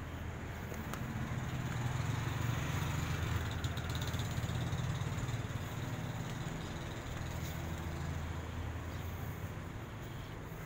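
Steady low hum of a running motor, louder from about two to five seconds in.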